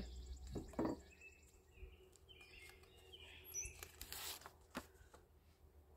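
Quiet handling sounds of a plate and tortillas on a camp table: a light knock about a second in, a short scrape about four seconds in, and another small knock just after. Faint bird chirps sound in the background.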